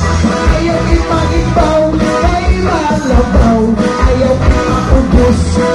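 Mini sound band playing a cha-cha-cha, with a singer over a steady beat and strong bass.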